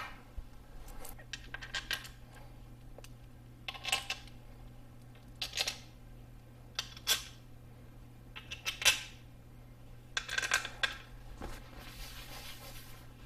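Sharp metallic clicks and clinks, one every second or two, from hand tools tightening the screws of a motorcycle engine's aluminium flywheel cover to 7.4 ft-lbs. Near the end a shop towel rubs over the cover. A low steady hum runs underneath.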